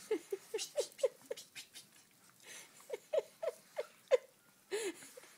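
Chihuahua puppy giving short, squeaky whimpering yips in quick runs: about six in the first second and a half, five more a couple of seconds later, and a last one near the end. Light clicks of its claws on the tile floor sound in between.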